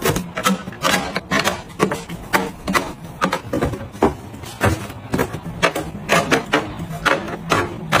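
Paper drink cartons and eggs being set into clear plastic refrigerator door bins: a quick, irregular run of light knocks and taps, two or three a second.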